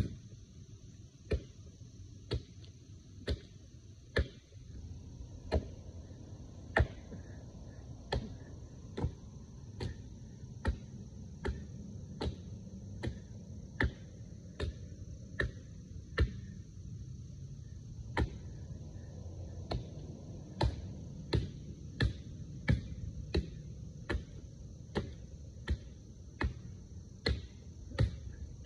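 Axe blows chopping into the base of a small dead tree trunk, one sharp chunk after another, about one a second at first and quickening to about one and a half a second in the second half.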